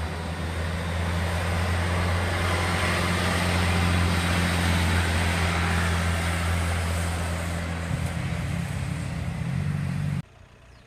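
Two-car diesel multiple unit passing at speed: a steady low diesel engine hum under the rush of wheels on rail, loudest as it goes by and easing off as it draws away. The sound cuts off abruptly near the end.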